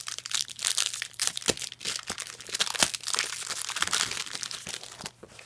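Yu-Gi-Oh booster pack wrapper crinkling and crackling as it is torn open and handled. The dense crackle dies down about five seconds in.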